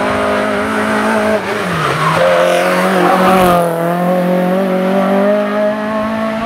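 Renault Clio RS race car's four-cylinder engine running hard through a hairpin. Its pitch drops about two seconds in, then climbs steadily as the car pulls away up the hill.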